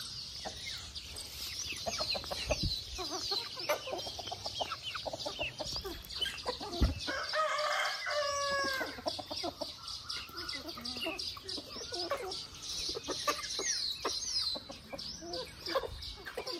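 A flock of chickens clucking and making short high chirps, with a rooster crowing once for about a second and a half near the middle.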